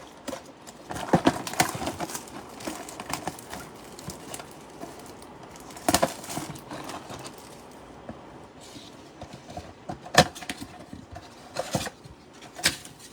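Hands opening a trading-card mega box and its packs: scattered taps, knocks and crinkles of cardboard and foil wrappers, with a few sharper clicks.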